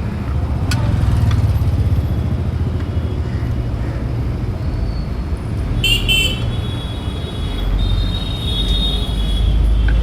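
Road traffic running close by with a steady low engine rumble, and a vehicle horn sounding about six seconds in, followed by a longer, thinner high tone.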